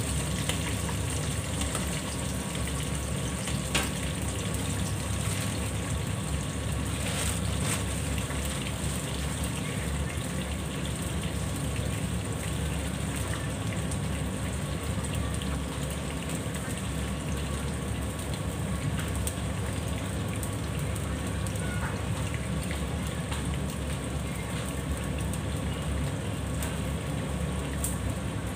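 Food frying in oil in a pan under a mesh splatter screen: a steady sizzle over a low, steady hum, with a couple of light clicks.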